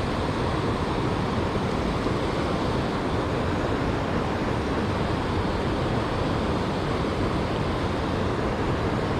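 Rushing river water: a steady, unbroken noise, strongest in its low and middle range.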